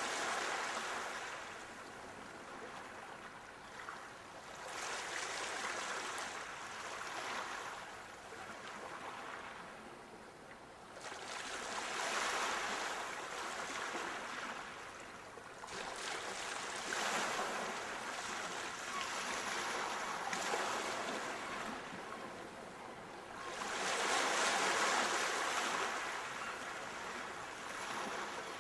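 Sea waves washing in and drawing back, a steady hiss that swells and fades every four to five seconds.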